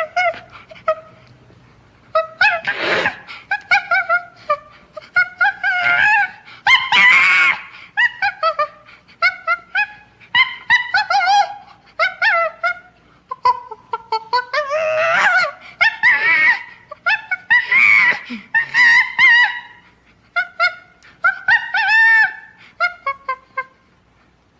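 Ape calls, chimpanzee-style screeches and hoots: rapid runs of short, high calls that bend up and down in pitch, starting about two seconds in and going on in quick series, with brief pauses, almost to the end.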